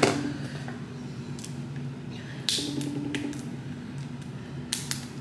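FaceTime call ringing out through a phone speaker: a steady ring tone repeating about every three seconds over a low hum, with a few handling clicks. The call is still unanswered.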